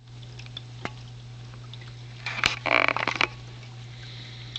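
Steady low hum of a reptile tank's small waterfall pump running, over a faint wash of trickling water. A brief clatter of clicks and scraping, the loudest sound, comes about two and a half seconds in.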